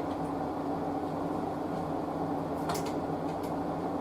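Steady low hum with hiss, holding two low steady tones, with a couple of faint clicks about three seconds in.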